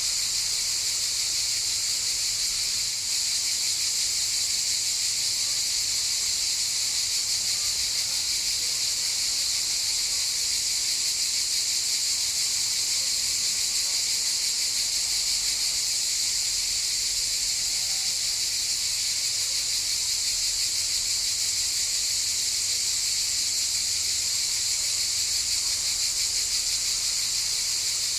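Cicadas buzzing in a steady chorus: one continuous high-pitched drone that holds level throughout.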